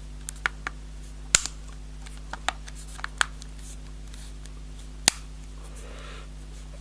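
Plastic back cover of an Acer Liquid E2 Duo smartphone being pressed onto the handset, its clips snapping into place in a series of sharp clicks, the loudest about one and a half seconds in and another lone one about five seconds in. A steady low hum lies underneath.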